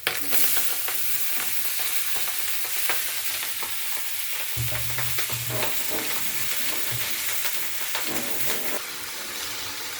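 Blanched spinach, radish and potato sizzling in hot oil in a kadai as they are added and stirred. The sizzle flares as the wet vegetables go in, then settles to a steady hiss, with light clicks of the spatula against the pan.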